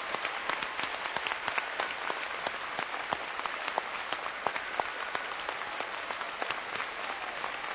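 Theatre audience applauding: a dense, steady patter of many hands clapping.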